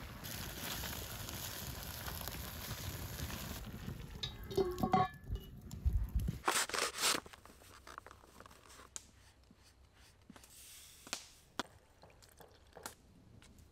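Cast-iron Dutch oven over a wood fire: a steady hiss, then metal scraping and clanking with a brief ring as the heavy lid goes on, followed by scattered crackling ticks from the fire.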